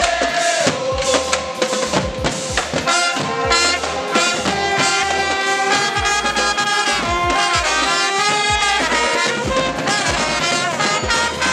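A school pep band playing live: brass horns, trumpets among them, hold and step through the notes of a tune over a drumline's marching snare and tenor drums striking steadily.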